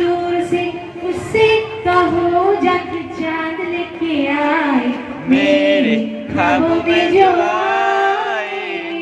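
A woman singing solo into a microphone, a slow melody of long held notes with sliding ornaments, and a wavering vibrato on a held note near the end.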